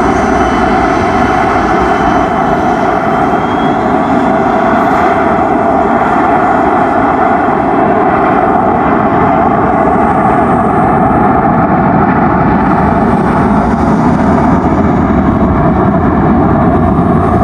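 Business jet's engines at high thrust during takeoff: a loud, steady rushing noise that holds unchanged throughout.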